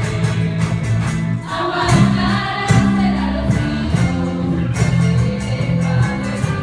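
A school ensemble playing an Andean tinku tune on sikus (panpipes) with strummed strings, percussion and group singing, over a steady, even beat.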